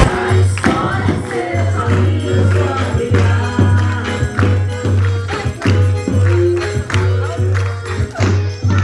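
Music with a steady beat and a pulsing bass line, a new track starting just as a different one ends.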